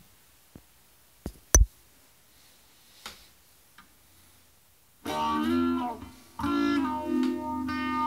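A few sharp clicks, the loudest about a second and a half in. Then, about five seconds in, an Ibanez electric guitar strikes a chord, breaks off briefly, and strikes another that rings on.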